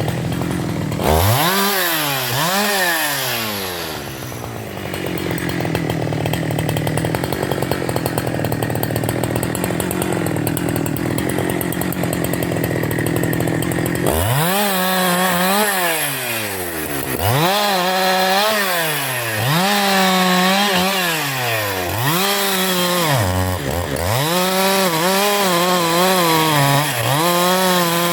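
Husqvarna 372 XP two-stroke chainsaw running. It revs up and back down once, runs steadily at a lower speed for about ten seconds, then is blipped up and down again and again, roughly every two seconds.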